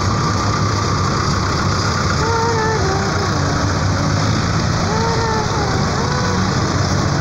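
Diesel tractor engines running steadily at a low, even hum as a Mahindra tractor passes at close range. Faint voices come through twice.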